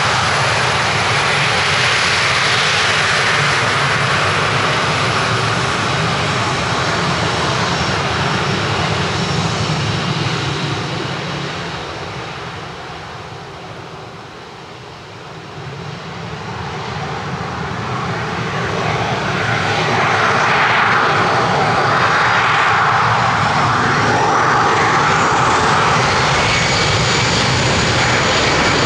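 Airliner engines close by and loud, fading to a low point about halfway through, then building again, with a high whine rising in pitch near the end.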